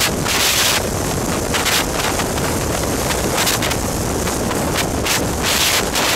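Wind buffeting the microphone from a moving car, over a steady rumble of road and engine noise; the wind comes in irregular gusts.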